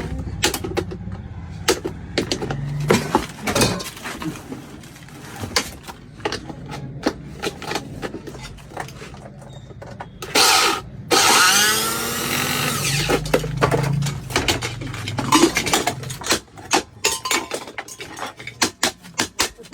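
A power tool running in short bursts amid many knocks and clicks. About ten seconds in it gives a louder whine that changes pitch for a couple of seconds.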